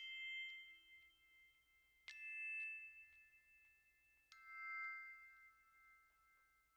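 Quiet background music: three soft bell-like notes about two seconds apart, each left ringing.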